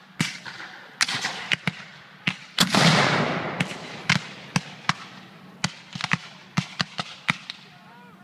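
Black-powder musket volleys from reenactors' firing lines: a rapid, uneven scatter of sharp cracks. About three seconds in, one louder, longer blast with a rumbling tail, the report of a field cannon.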